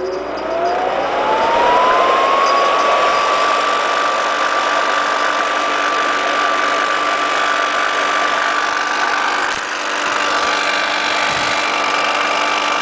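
A 1966 Lady Sunbeam bonnet hair dryer starting up. Its fan motor's whine rises in pitch over the first few seconds as it spins up, then holds steady over a rush of blowing air.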